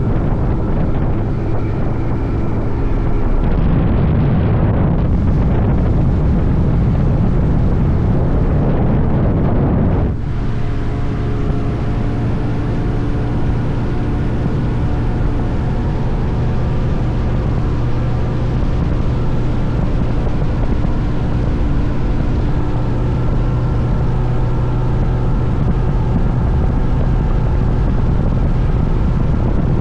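A bass boat's outboard motor running steadily, with wind rushing over the microphone for a stretch early on that clears about ten seconds in, leaving a steady engine hum.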